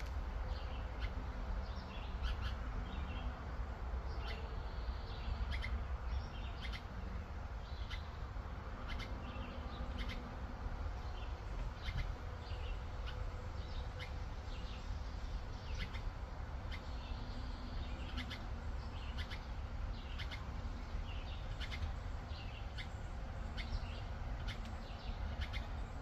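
Small birds chirping: short, high chirps come again and again at irregular intervals over a steady low rumble.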